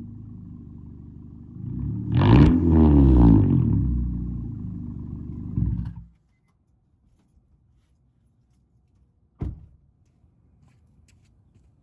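Car exhaust through its muffler: the engine idles, is revved once about two seconds in and falls back to idle, and the sound cuts off abruptly about six seconds in. A single sharp click sounds near the end.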